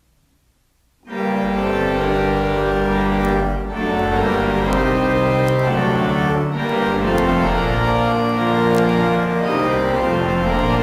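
Near silence, then an organ comes in about a second in, playing slow, held chords.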